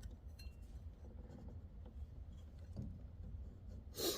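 Faint scraping and light clinking from parts being handled, over a low steady rumble, with a brief louder rasp just before the end.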